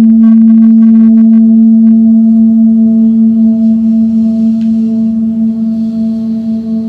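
A singing bowl ringing: one loud low tone with fainter higher overtones, slowly fading and pulsing gently as it dies away.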